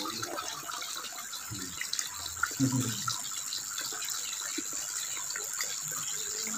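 Steady running-water hiss with a thin, steady high tone, and a few brief low sounds between about one and a half and three seconds in.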